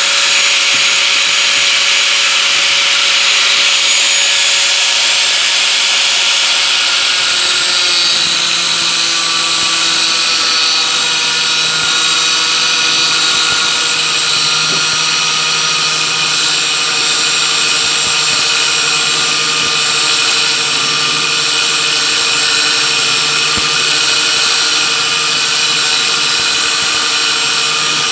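Angle grinder cutting through microwave fan motors, running continuously with a loud, steady whine; its pitch drops a little about eight seconds in.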